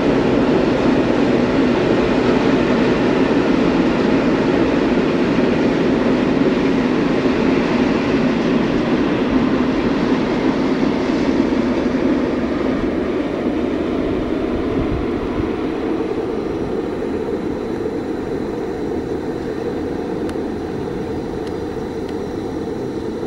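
Steady running rumble of a moving vehicle heard from inside, growing somewhat quieter after about fourteen seconds.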